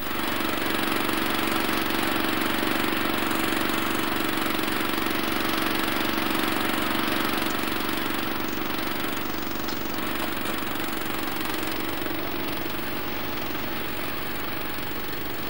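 Engine of a small hydraulic digger running steadily, a constant low mechanical hum.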